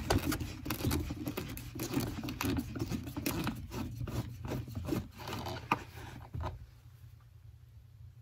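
Phillips screwdriver backing a screw out of a metal washer on the floor cross rail through the carpet: a quick, irregular run of small clicks and scrapes that dies away about six and a half seconds in.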